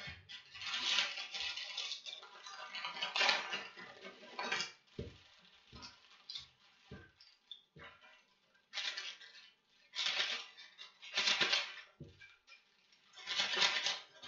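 Plastic instant-ramen wrapper crinkling and tearing in several bursts as the package is opened and its seasoning packets are pulled out, with a few soft knocks against the table in between.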